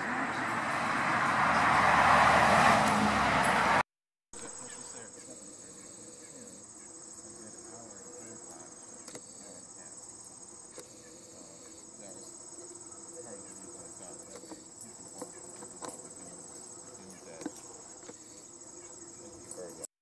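A loud rushing noise swells and cuts off about four seconds in; after that, insects trill steadily with a high, continuous pitch.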